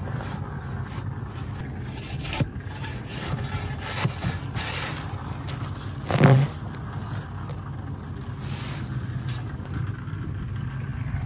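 Shovels scraping and scooping dry cement powder and sand out of bags into a bucket and a wheelbarrow, a run of repeated gritty scrapes, with one louder brief knock about six seconds in. A steady low hum runs underneath.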